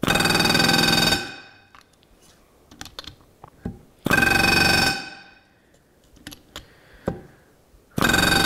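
Pneumatic rivet gun with a spring-loaded back-riveting set, hammering rivets against a metal back-riveting plate to drive their shop heads directly. It runs in three even buzzing bursts of about a second each, about four seconds apart, one burst per rivet. Small clicks fall between bursts as the set is moved to the next rivet.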